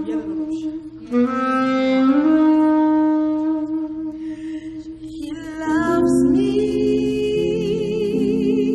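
Slow gospel music: a lone lead melody slides between long held notes. About two-thirds of the way in, fuller accompaniment comes in beneath it and the lead holds a note with vibrato.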